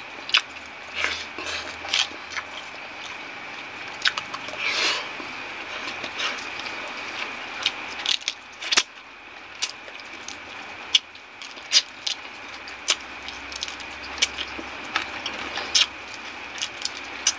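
Close-up eating sounds: chewing and lip-smacking on shrimp and noodles, many short, sharp, irregular clicks, over a faint steady high hum.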